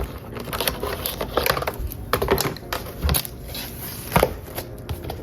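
A keyboard's box and plastic packaging being handled: irregular rustling and crinkling with light clicks and knocks, the loudest knock about four seconds in.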